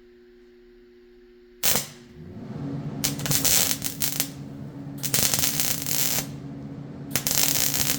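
Electric welder welding thin steel frame tubing: a sharp click, then the welder humming, then three bursts of welding-arc crackle, each about a second long.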